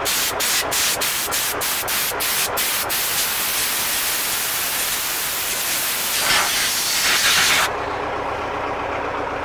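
Compressed-air blow gun, fed from a truck's air receiver, blasting dust out of a clogged tractor radiator core. It gives a quick series of short hissing bursts for about three seconds, then one long continuous blast that cuts off sharply about three-quarters of the way through.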